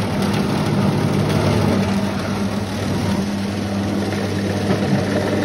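Motor of a soft-serve fruit ice cream machine running with a steady hum while it extrudes blended frozen fruit into a cup.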